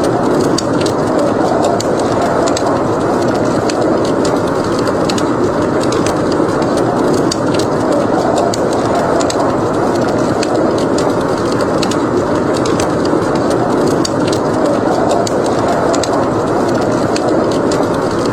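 Fireplace fire crackling, with frequent small pops and snaps over a steady rushing noise.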